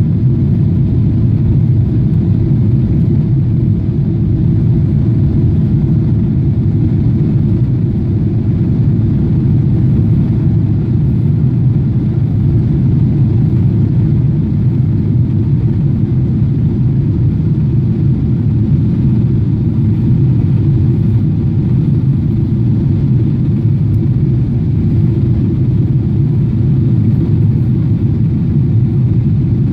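Boeing 777-300ER's GE90-115B turbofans running steadily at climb power just after takeoff, heard inside the cabin as a loud, even, low-pitched drone.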